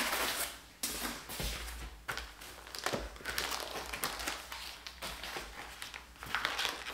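Unpacking by hand: a plastic bag crinkling and parts being lifted out of foam packing in a cardboard box, with irregular rustles and a few light knocks.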